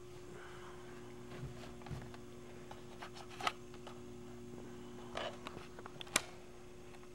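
Quiet room tone with a steady low hum, broken by a few faint clicks and knocks, the sharpest about six seconds in.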